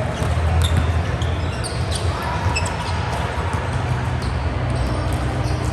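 Indoor volleyball play: the ball being struck and bouncing, with short high sneaker squeaks on the court floor, over a steady low hum in a large hall.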